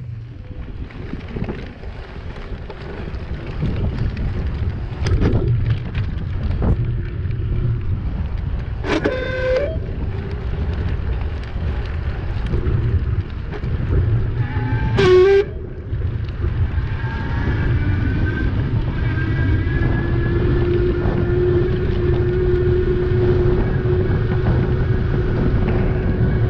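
Wind buffeting the microphone of a moving e-bike, a steady low rumble. Two short pitched tones cut through it, about six seconds apart, and a faint steady whine joins for the last ten seconds.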